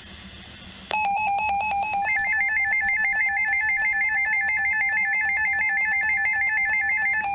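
Emergency alert attention tone: a loud, rapidly warbling trill of high electronic tones that starts about a second in and holds steady, signalling the weather warning about to be read.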